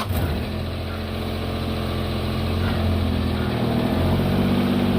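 Car engine idling steadily just after starting, a steady low hum that grows slightly louder.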